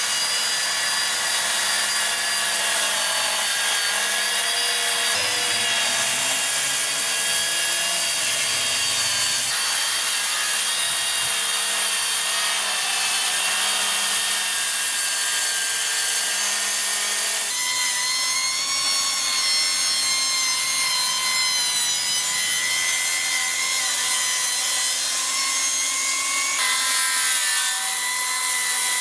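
Cordless brushless track saws, a Metabo KT 18 LTX 66 BL and a Milwaukee M18 Fuel, running under load while ripping 45 mm dry framing timber with 24-tooth blades: a loud, steady motor and blade whine over the rasp of the cut. The pitch and tone jump abruptly several times as shots are cut together, with a different, steadier whine from about two-thirds through.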